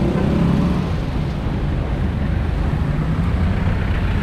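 Steady low rumble of tyres and traffic heard from inside a small open-sided electric passenger vehicle moving through city traffic. The engine hum of a vehicle close alongside fades out in the first second.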